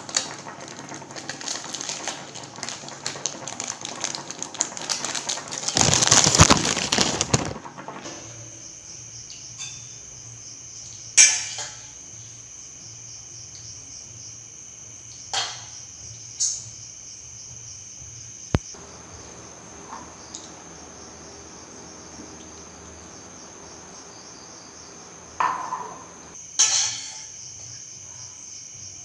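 Fork and spoon clinking now and then against a stainless steel pot and plate as instant noodles are stirred, over a steady high-pitched cricket trill. The first several seconds hold a busy stretch of rustling and scraping noise, loudest around six seconds in.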